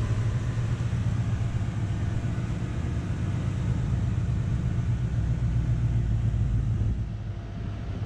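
A car running with a steady low rumble that eases off about seven seconds in.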